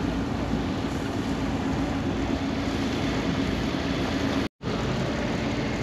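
Steady low engine drone with wind rumble from a car ferry under way. About four and a half seconds in, the sound cuts out for an instant, and a lower steady drone carries on.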